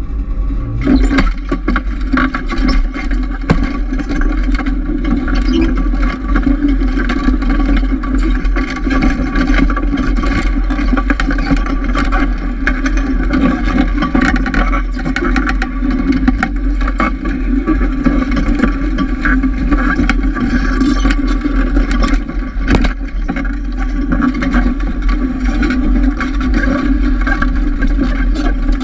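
Snowmobile engine running as it pulls a loaded firewood sled over snow, setting off about a second in. The sled and its load of logs scrape and knock throughout.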